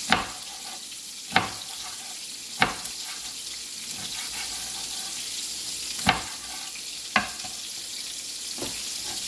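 Knife cutting a bell pepper on a cutting board, about six sharp knocks spaced irregularly. Underneath, chicken pieces sizzle steadily as they brown in hot oil.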